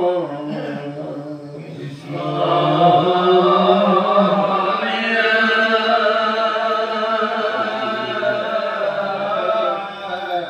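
A congregation chanting pal naam, the Assamese devotional naam chant, many voices together in a drawn-out melodic line. The chant thins early, swells again about two seconds in, and grows fuller and brighter about halfway through.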